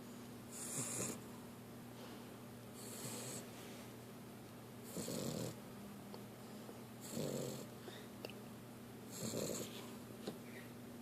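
Sleeping puppy snoring: about five soft, breathy snores, roughly two seconds apart.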